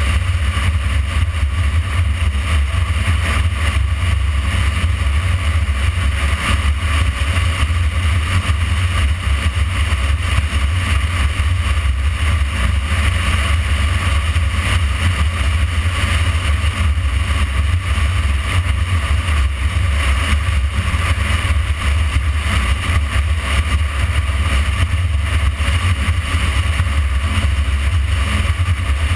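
Motorcycle riding at a steady pace, heard from a camera mounted on the bike: a loud, steady low rumble of wind on the microphone and engine, with road hiss over it.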